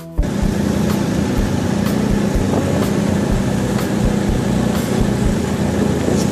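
Ski-Doo snowmobile engine running steadily close by, a loud, even mechanical noise with a constant low hum.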